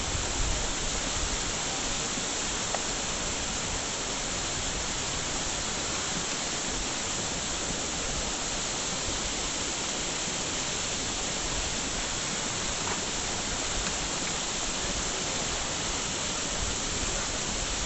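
Steady, even rushing noise with no rhythm or pitch.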